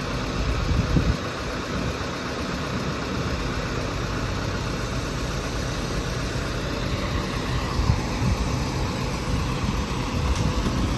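Truck engine running steadily, driving the hydraulics of a truck-mounted crane (boom loader) that is lifting a load of boards, with a few brief knocks.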